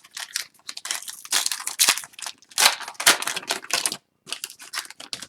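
Foil hockey-card pack wrappers crinkling and cards being handled as packs are opened, in irregular rustles with a short pause near the end.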